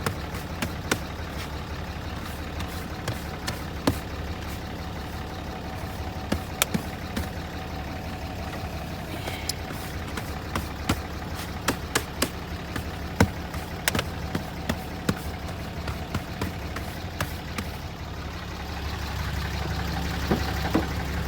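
Cummins turbo diesel truck engine idling steadily, a little louder near the end, with frequent short clicks and knocks of things being handled and moved about in the truck's cab during cleaning.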